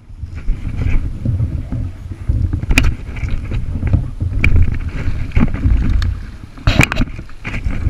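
Low, uneven rumble of wind and water against a camera microphone aboard a kayak, with a couple of sharp knocks, about three and seven seconds in.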